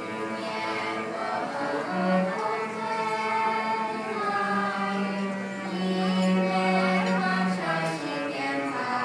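Children's choir of girls singing a slow song together in held, gliding notes, with a low held note beneath the voices about two seconds in and again from about five to seven and a half seconds.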